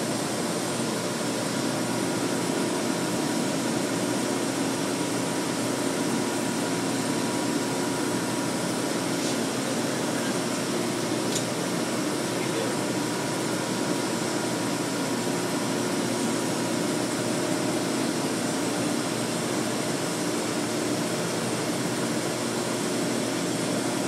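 Steady hum and fan noise from an elevator controller and drive cabinet, running evenly with a few steady low tones under it.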